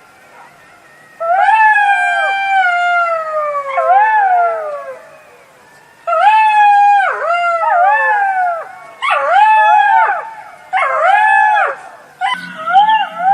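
Jackal howling: long, falling, wavering cries broken by quick rising-and-falling yips, in several bouts with short gaps between them, a second voice overlapping near the end.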